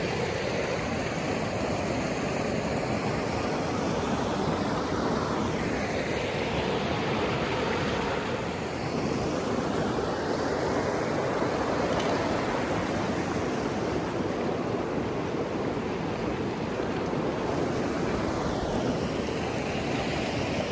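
Fast-flowing river rushing steadily over rocks and small rapids.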